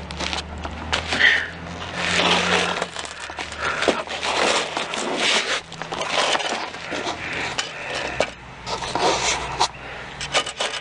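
A person crawling across the dirt floor of a crawl space: irregular scraping and scuffing of hands, knees and clothing on soil and debris, in uneven bursts, with a faint steady low hum underneath.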